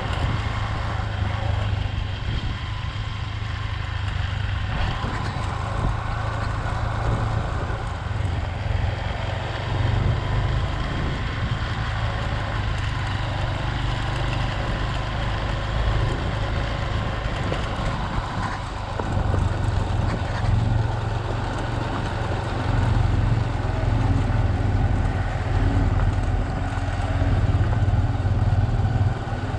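Off-road 4x4 vehicle engine running, a continuous low rumble that swells louder several times as it works.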